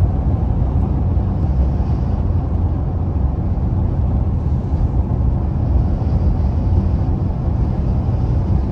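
Pickup truck driving on the road: a steady low rumble of engine and road noise.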